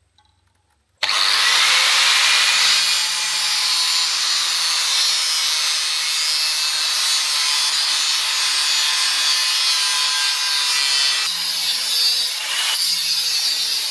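Power grinder grinding steel, a steady high grinding noise that sets in suddenly about a second in and dips briefly near the end.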